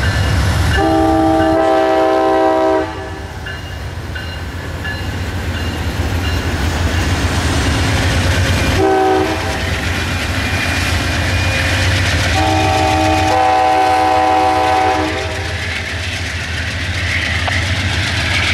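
Amtrak GE P42DC Genesis diesel locomotives pulling away with a steady low engine rumble, their horn sounding for the grade crossing ahead: a long blast about a second in, a short toot around nine seconds, and another long blast around twelve seconds. Near the end the rumble gives way to wheel noise from the passing double-deck Superliner cars.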